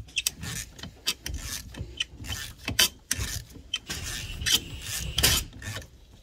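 Ratchet with a 10mm socket clicking in short, irregular strokes as it loosens the screw of the bottom hose clip on a fuel filler neck.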